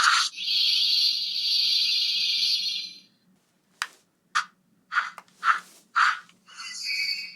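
Bandai Aurachanger Memorial Edition transformation toy playing electronic sound effects from its built-in speaker: a held electronic effect for about three seconds, then a quick run of six short sharp effect sounds, then another held tone near the end.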